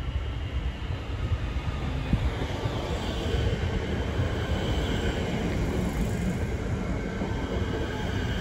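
Metro electric suburban train running alongside the platform, a steady rumble of wheels on rail that grows louder as the train draws close, with a faint whine over it.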